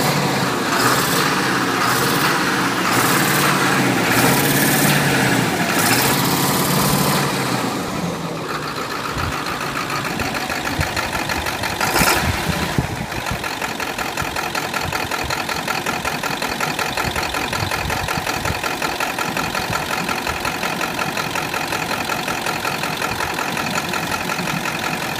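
Ford 7.3L Powerstroke V8 turbo diesel revved in pulses for about eight seconds, then settling back to a steady idle, with one sharp bang about twelve seconds in. The engine has an intermittent misfire and smokes once at operating temperature, which the owner suspects is a bad injector.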